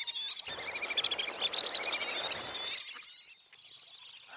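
Many birds chirping and twittering in quick, overlapping high calls. A rushing noise comes in about half a second in and stops just before three seconds, after which the calls thin out and grow quieter.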